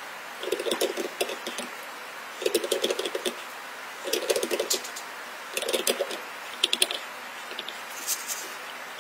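Seal-carving knife cutting into a stone seal: a short burst of rapid crackling, chipping clicks with each stroke, about five strokes with pauses between them, the last ones lighter.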